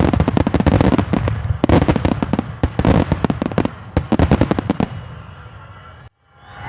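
Aerial fireworks display: rapid, overlapping bangs and crackles with a low rumble beneath, dense for about five seconds, then dying away.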